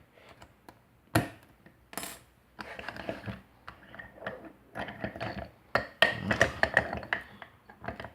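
Lock picks working a Slaymaker wafer padlock: small metallic clicks and rattles, with a sharp click about a second in and a quick run of clicks near the end.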